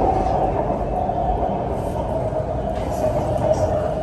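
Electric BTS Skytrain metro car running, heard from inside the carriage: a steady rumble with a running tone that sags slightly in pitch partway through.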